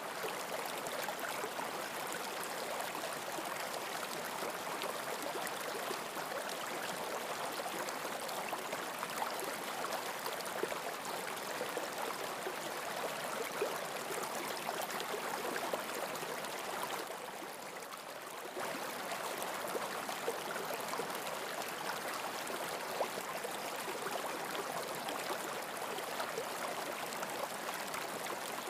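Steady running-stream sound, water babbling and trickling, briefly quieter about two-thirds of the way through.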